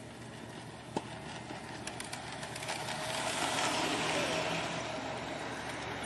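G gauge model train rolling past close by on outdoor track, its wheels rumbling and clicking over the rails. It gets louder from about three seconds in as the locomotive and freight cars pass right beside the microphone.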